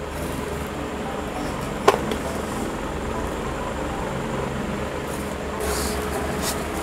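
Sugar poured into a pan of fried grated coconut and stirred with a plastic spatula: soft dry scraping and rustling over steady background noise, with one sharp tap about two seconds in and louder scraping near the end.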